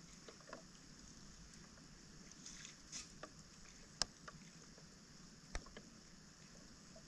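Faint, scattered splashes and sharp clicks of hands pulling wet debris out of a flooded roadside drain grate, the loudest about four seconds in, over a steady faint high hiss.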